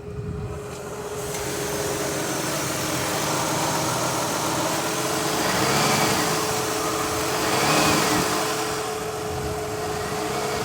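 2003 Mazda Tribute's V6 engine idling rough with a misfire and trying to stall, its speed swelling up and dropping back twice, over a steady whine. The miss comes from a coil arcing because oil from a leaking valve cover gasket has got down around the spark plug boot.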